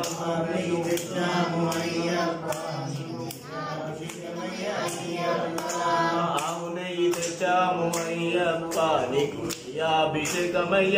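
Voices singing a Telugu Ayyappa abhishekam bhajan in chant style, over a regular beat of sharp percussive strikes.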